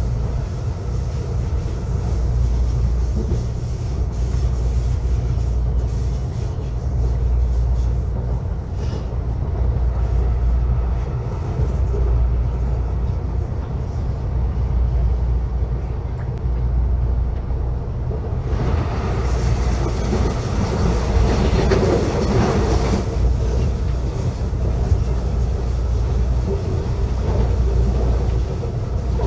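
Commuter train running at speed, heard from inside the passenger car: a steady low rumble of wheels and motors. About two-thirds of the way through a louder hiss rises for a few seconds and a faint high-pitched whine comes in and holds.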